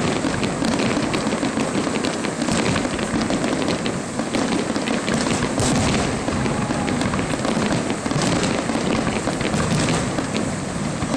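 Aerial firework shells bursting, with a dense, continuous crackle of many sharp pops.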